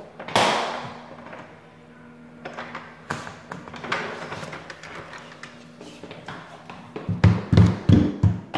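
Knocking and pounding on an apartment door: a sharp bang about a third of a second in, scattered light taps, then a run of heavy thumps, about four a second, near the end.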